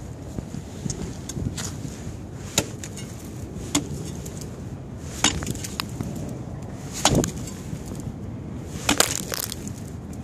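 Sharp, glassy knocks and cracks on frozen pond ice, about eight of them at uneven intervals, the loudest a little after the middle and a pair near the end.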